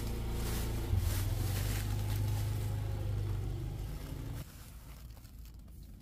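A steady low engine hum, which drops away suddenly about four and a half seconds in, leaving a fainter background.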